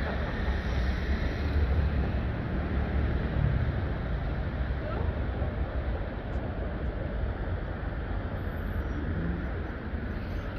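Wind buffeting the microphone over the steady rumble of city street traffic.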